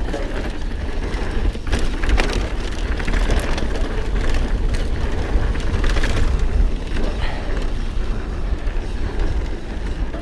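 Mountain bike riding over a rocky dirt trail: tyres crunching over grit and stones, with many short knocks and rattles from the bike over bumps and a heavy low rumble throughout.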